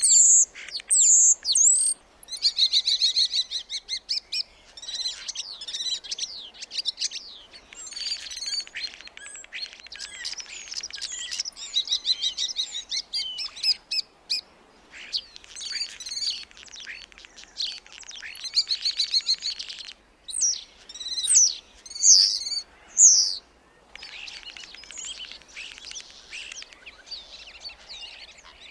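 Starling song: a continuous medley of chattering, clicks, buzzy rattles and gliding whistles. Loud, sharp rising and falling whistles come at the start and again about two-thirds of the way through.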